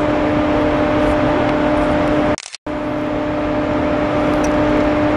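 Steady machinery hum in a large industrial hall, with a constant low tone over a noisy drone. It cuts out briefly about two and a half seconds in, then resumes unchanged.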